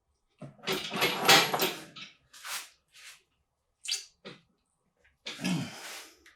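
Hand tools and metal engine parts clanking and scraping in irregular bursts. The loudest run is about a second in, and another comes near the end.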